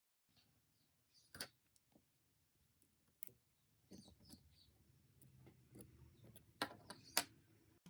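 Faint, sharp clicks and taps as the small cable and antenna connectors inside a Samsung Galaxy S8 are unclipped and handled, with two louder clicks close together near the end.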